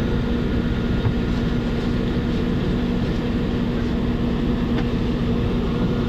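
Steady drone of a moving vehicle heard from inside, a constant low hum over road noise.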